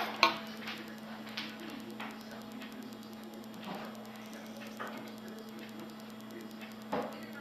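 A steady low electrical hum with a few faint knocks and clicks, the strongest about seven seconds in.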